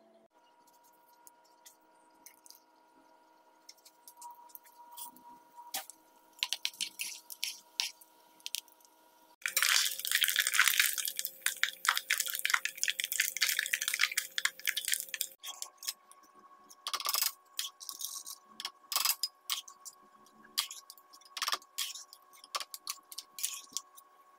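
Ghee heating in a pan, with scattered small crackles that grow more frequent. About a third of the way in, neyyappam batter goes into the hot ghee and sizzles loudly for about six seconds, then settles into irregular pops and crackles as it fries.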